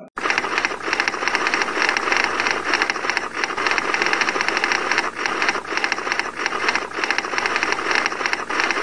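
A dense, steady mechanical rattle of rapid clicks that starts abruptly.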